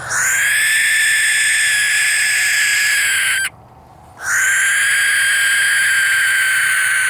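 Barn owl giving two long, harsh hissing screeches, each about three and a half seconds long, with a short break between them. This is the defensive call of an agitated owl being held in the hand.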